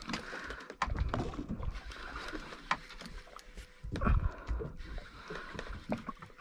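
Baitcasting reel being cranked in on a hooked fish, with small clicks and ticks throughout and low, irregular sloshing of water against the boat's hull.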